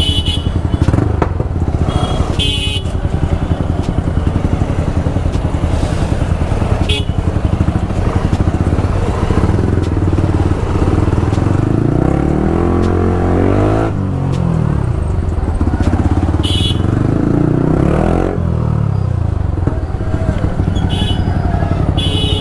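Yamaha R15 V3's single-cylinder engine with a super loud exhaust, running at low speed in stop-and-go traffic, revved up and back down twice in the second half. Short horn beeps sound several times.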